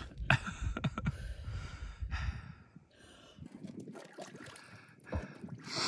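A woman breathing hard and gasping in ice-cold water, with several short, sharp breaths in the first half, then quieter.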